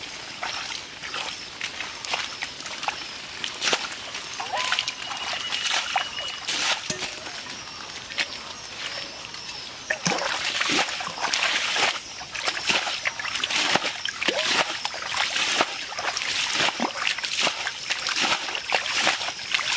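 Muddy water being bailed out of a shallow pit by hand and with a small bowl, splash after splash. The splashes come faster and louder from about halfway through.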